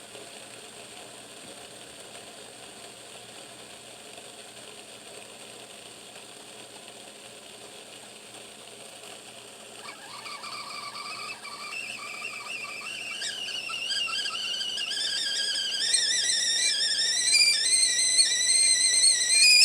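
Mainstays 1.8-litre stainless steel whistling tea kettle on the stove: a steady faint hiss of water heating, then about halfway through the whistle starts, wavering and climbing in pitch and growing louder as the water comes to the boil.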